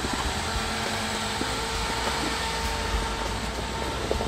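Engine of an older Toyota Land Cruiser running steadily under load as it drives forward through deep snow over snow traction tracks, with a steady noise of engine and tyres in snow.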